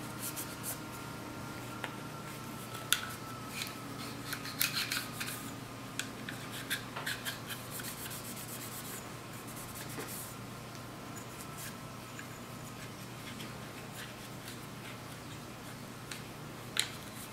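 Cloth patch rubbing and scuffing along a Sig pistol's frame rails, wiping off carbon buildup, with small scattered clicks as the frame is handled. The rubbing is mostly in the first half, with only a few clicks later.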